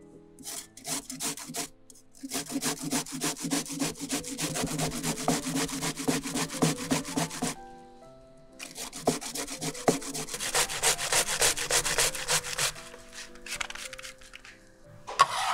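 Onion being grated on a stainless steel cone grater: a few separate scrapes, then two long runs of quick rasping strokes with a short pause between them. A short loud knock near the end.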